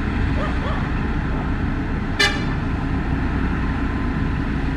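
Heavy machinery diesel engine running steadily, typical of a motor grader at work, with one short, sharp horn toot about two seconds in.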